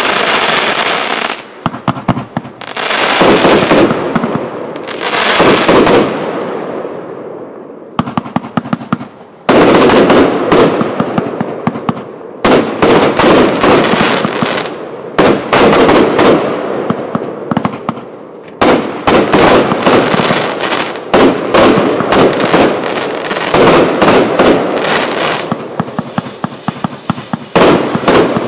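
Lesli Dark Water compound firework battery firing in quick sequence: repeated launch reports and shell bursts with long runs of rapid popping and crackling, broken by brief lulls.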